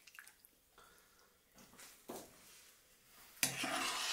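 Serving spoon scooping sautéed piquillo peppers and prawns in oily sauce from a frying pan: a few faint clicks, then a louder wet, squelching scrape near the end.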